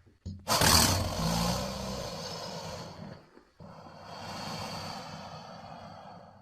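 Parasuchus creature sound effect: a loud, rough, low call that starts suddenly about half a second in and fades over about three seconds, then a second, quieter call that cuts off near the end.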